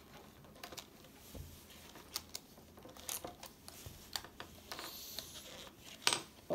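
Small handling sounds: scattered light clicks and brief rustles as a rubber band is stretched around wet cotton on the wet-bulb thermometer of a plastic sling psychrometer, with a sharper click near the end.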